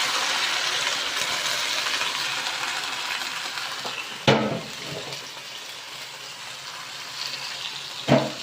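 Red curry paste sizzling in hot oil in a pan, the sizzle slowly dying down. A spatula knocks sharply against the pan twice, about halfway through and near the end.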